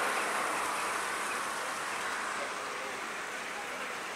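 Fountain jets splashing into their basin, a steady rush of water that fades gradually.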